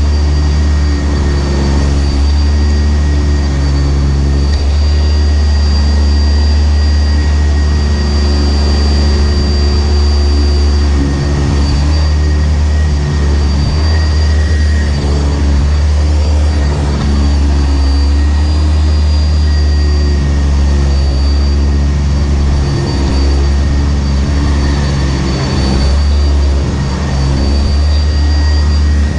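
Sanitaire SC679j upright vacuum cleaner running steadily while vacuuming carpet: a strong motor hum with a thin high whine over it.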